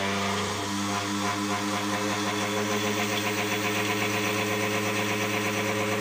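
Panasonic juicer/blender motor running steadily, grinding thick boiled chana dal into a paste with no water added. A loud, even motor hum with a strong low tone.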